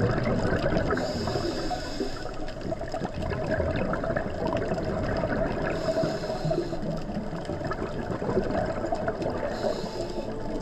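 Underwater sound picked up by a diver's camera on a reef: a steady crackling hiss full of fine clicks, with a diver's regulator exhaling bubbles in short hissing surges about every four seconds.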